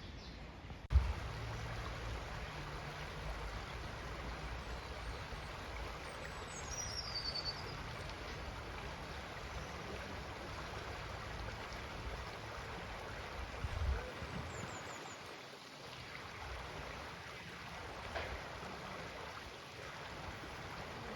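Stream flowing with a steady rush of water, starting with a sharp thump about a second in. A bird gives a short falling run of high chirps about seven seconds in, and briefly chirps again later.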